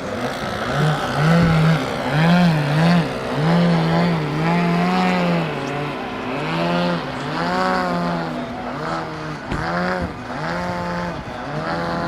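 Radio-controlled model airplane engine running, its pitch rising and falling over and over as the throttle is worked, with a second engine tone holding steady underneath.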